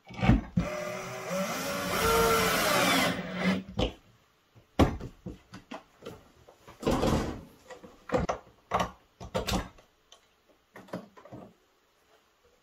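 Cordless drill-driver running for about three and a half seconds, its motor pitch rising and then falling as it drives a screw into the outlet box on the cabinet wall. A string of short knocks and clicks from handling the box and cable follows.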